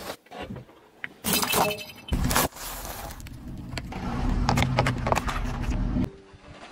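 A car tyre rolling slowly over small objects on asphalt and crushing them. Plastic jelly cups crack and burst under the wheel over the low rumble of the moving car. There are a few separate crushing crunches, each starting and stopping abruptly.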